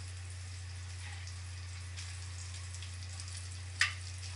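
Breaded zucchini slices frying in bacon grease in a skillet: a steady sizzle with small crackles over a low hum, and one sharp clack of a utensil against the pan near the end.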